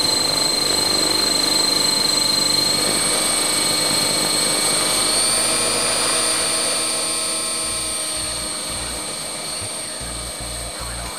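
Align T-Rex 600 ESP electric RC helicopter in flight, heard from a camera mounted on the helicopter: a steady, high-pitched motor and gear whine over rotor noise. The whine rises a little in pitch about halfway through, then the sound fades gradually toward the end.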